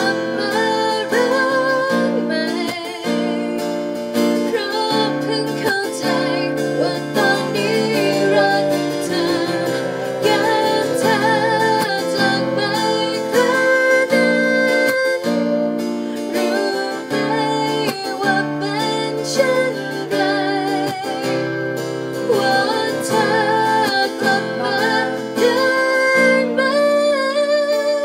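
A woman singing to an acoustic guitar accompaniment, her held notes wavering with vibrato over steady guitar chords.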